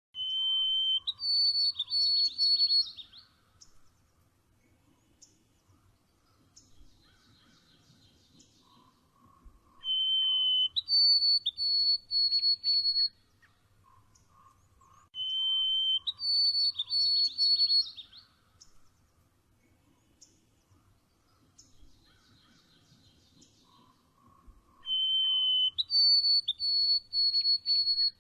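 Songbird singing the same phrase four times, about every five seconds: a steady whistled note, then a higher run of short whistled notes with a rapid trill beneath. Faint chirps fill the gaps between phrases.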